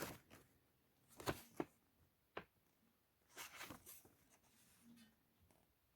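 Faint paper rustles of an instruction booklet being handled and its pages turned: two short rustles about a second in, a small tick, and a longer rustle past the middle.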